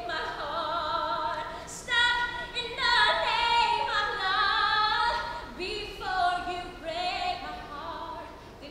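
A woman singing solo in phrases, holding long notes with a clear vibrato.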